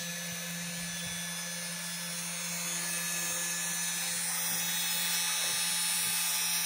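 Vevor 3018 Pro desktop CNC engraver running, its spindle motor giving a steady hum with a high whine that grows slightly louder in the second half.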